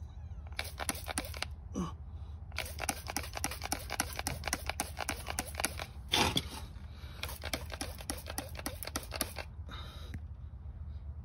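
Hand trigger spray bottle pumped rapidly, over and over, in several quick runs of short hissing squirts with brief pauses between them, spraying liquid conditioner up onto the truck's front suspension rubber. A steady low hum underlies it.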